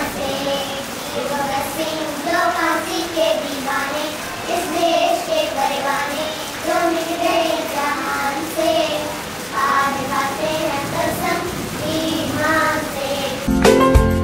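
Young girls singing a song together. About a second before the end it cuts to loud instrumental music with a beat.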